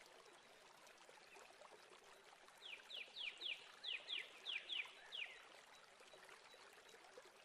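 A bird calling faintly in the background: a run of about ten quick falling chirps, about four a second, over a low room hiss.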